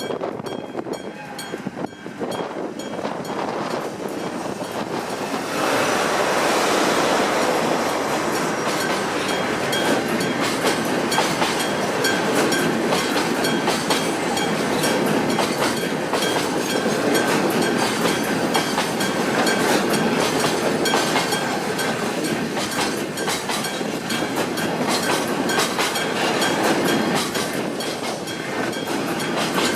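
Freight train running past a Japanese level crossing, wheels clacking on the rails, getting louder about six seconds in and staying loud. Through it the crossing's electric warning bell keeps ringing in a steady, even rhythm.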